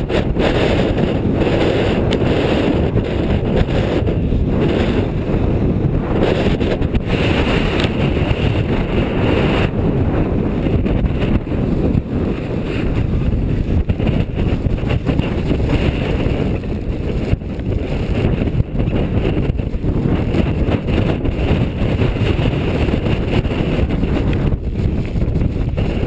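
Strong mountain wind buffeting the microphone: a loud, steady low rumble that does not let up.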